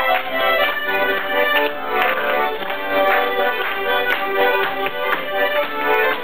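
Piano accordion playing a tune: a melody over chords struck in a steady rhythm, about two a second.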